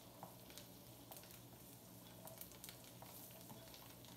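Faint sizzling and crackling of smothered cube steak simmering in gravy in a pan, with scattered small pops over a low steady hum.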